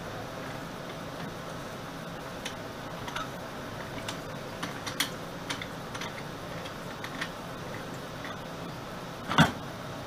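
Metal clicks and clinks from a lathe scroll chuck being worked by hand and with a chuck key as its jaws are opened and closed around the lathe's outboard handwheel, with one louder clunk near the end.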